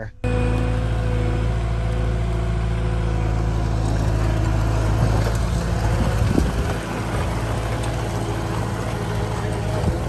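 Diesel engine of a CAT compact track loader running steadily as the machine drives with a grapple bucket full of manure and straw bedding.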